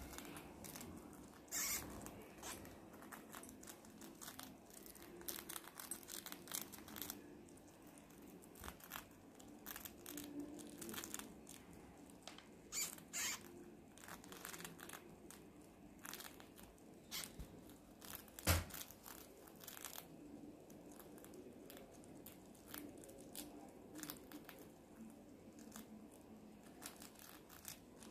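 Young white rats nibbling a biscuit: many faint, irregular crunching and crackling clicks of small teeth on the biscuit, with one sharper click about two-thirds of the way through.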